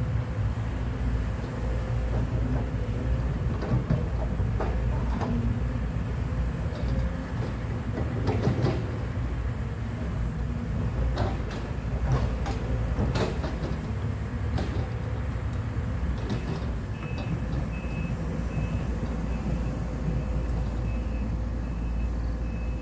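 Sumitomo 210 excavator's diesel engine running steadily, with scattered clanks and knocks as it digs.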